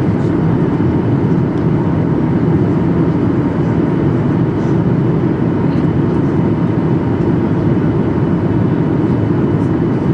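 Steady cabin noise inside a passenger aeroplane: an even, unchanging hum of engines and airflow, with a few faint steady tones and occasional faint small ticks.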